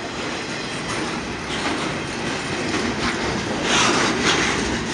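Double-stack container well cars of a freight train rolling past on steel rails: steady wheel-on-rail rumble and clatter. It grows louder and harsher for a moment near the end.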